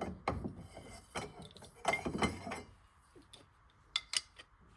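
Irregular metallic clinks and clicks from copper pipe parts and tools being handled and fitted together, with a short scrape about two seconds in.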